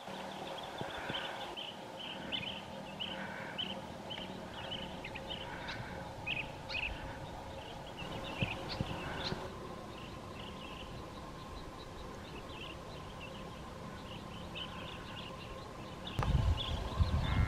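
Birds chirping in short calls, repeated about once or twice a second and sparser in the second half, over a steady faint background hum. A burst of low rumbling comes near the end.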